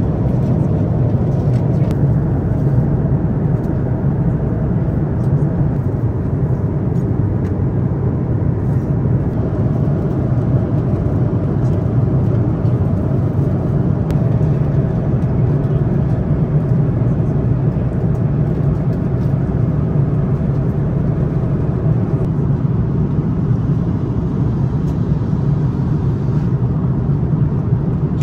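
Steady low cabin drone of an Airbus A330-900neo airliner in cruise: airflow and engine noise heard inside the passenger cabin, unchanging throughout.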